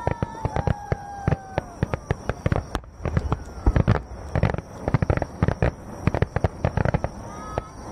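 Aerial firework shells bursting in a rapid barrage: dozens of sharp bangs and crackles in quick, irregular succession. The loudest cluster comes about four seconds in.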